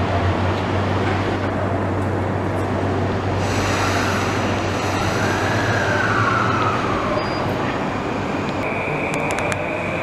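JR East E235 electric train at a station platform: a steady low hum, and a whine that rises and then falls in pitch from about four to seven seconds in. A steady high tone starts near the end.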